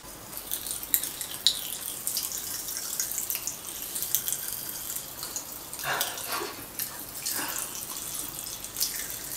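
Popping candy crackling and fizzing in mouths: a dense run of tiny pops and clicks, with a few sharper snaps about a second in.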